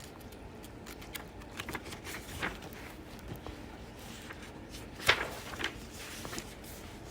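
Faint scattered taps and rustles of handling, with one louder short sound about five seconds in.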